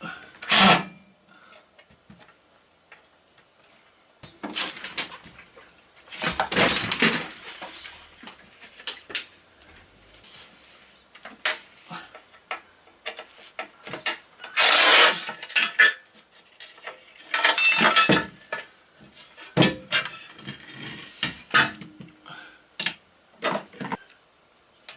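Hand tools at work unbolting a motorcycle's aluminum crash pan: short runs of ratchet-wrench clicking and scattered metallic clinks and clatter of tools, bolts and the metal plate.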